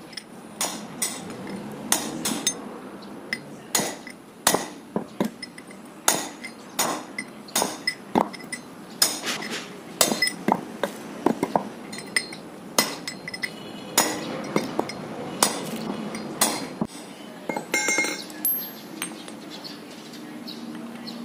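Hammer tapping a steel chisel to drive the old bearing inner race (cone) off a front wheel hub. The taps come as sharp metallic clinks, irregular at about one or two a second, and stop a few seconds before the end.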